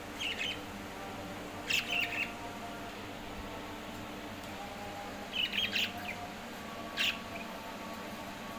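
Pet parrot giving short, high chirps in four brief bouts, over a steady low hum.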